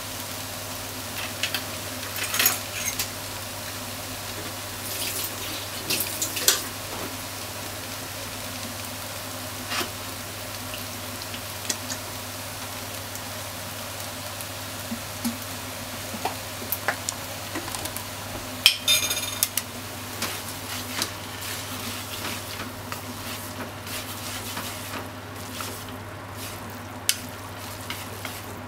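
Soba noodles, onions and meat sizzling steadily in a hot frying pan, with scattered sharp clicks and taps of utensils against the pan and a louder cluster of clicks about two-thirds of the way in. A low steady hum runs underneath.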